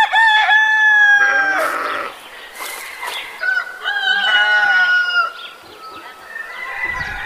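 Rooster crowing: two long, loud crows a couple of seconds apart, then a fainter crow near the end.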